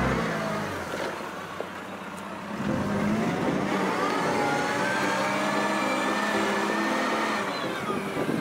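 A vehicle engine sound effect laid over a push-along toy loader, getting louder about a third of the way in and slowly rising in pitch as if revving, then fading near the end.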